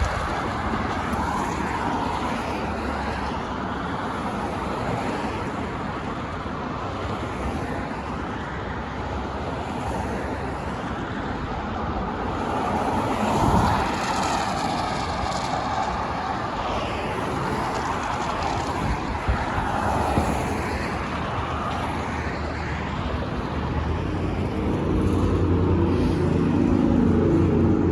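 Siemens S200 light rail train running through the station: a steady rumble, with a whine that rises and falls in pitch about halfway through. About 24 seconds in, a louder steady pitched tone sets in and holds, the train's horn being sounded long.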